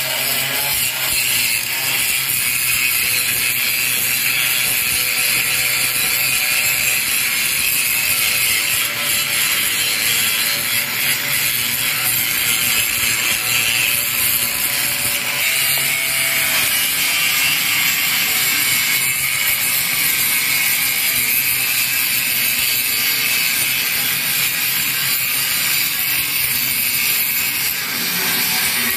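Electric angle grinder grinding rusty steel, running steadily with no breaks.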